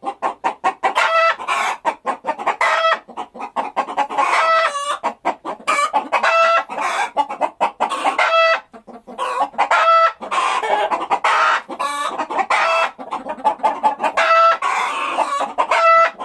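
Chickens clucking and cackling: a fast run of short clucks broken every second or two by a longer held call.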